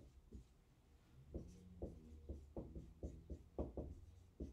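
Dry-erase marker writing on a whiteboard: faint, quick taps and strokes as letters are written, starting about a second in.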